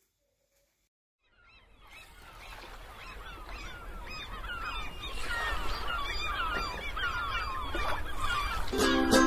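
Silence for about a second and a half, then outdoor ambience fades in: many birds calling over a low rumble, growing louder. Just before the end a ukulele begins playing chords.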